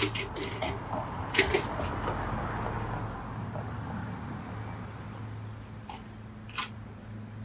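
A hand caulking gun pumping Sikaflex sealant onto a roof cable-entry gland: a few sharp clicks from the gun, over a steady low hum and a swell of background noise in the first half.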